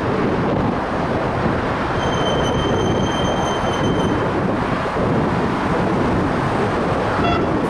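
X'Trapolis electric suburban train running in along the platform and slowing to a stop, a steady rumble of wheels and motors. A steady high-pitched squeal sounds for about two seconds in the middle as it slows.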